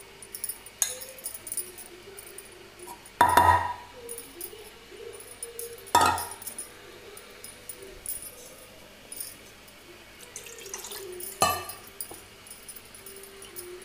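A steel spoon clanking sharply against an aluminium pot three times while scooping boiled chana dal, with softer scrapes and clicks in between.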